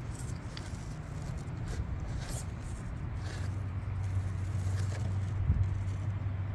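Mini RC rock crawler driving over rocks: a low, steady hum from its small brushed electric motor, growing stronger partway through as it climbs, with faint ticks and scrapes from the tyres and a sharp knock about five and a half seconds in.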